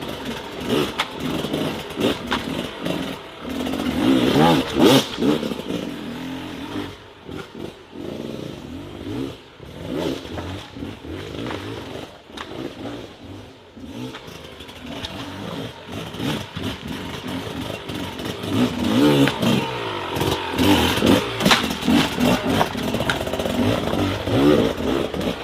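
Off-road vehicle engine revving hard in repeated rising and falling surges, loudest about four seconds in and again over the last third.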